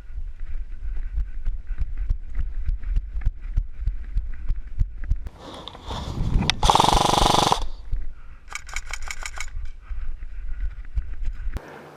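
Steady rumble with many irregular knocks and rustles close to the microphone, a loud noisy blast in the middle, and a quick, even rattle of clicks about nine seconds in that fits a short burst from an airsoft gun on full auto.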